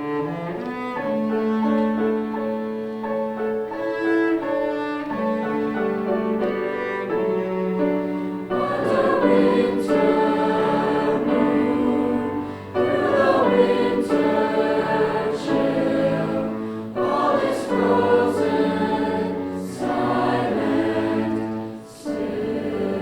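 High school choir singing with instrumental accompaniment; the voices grow fuller about eight seconds in.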